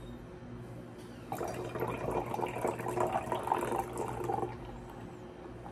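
Carbonated cola poured from a can into a glass of milk: a fizzing, splashing pour starting a little over a second in and stopping about three seconds later. The mix foams up in the glass.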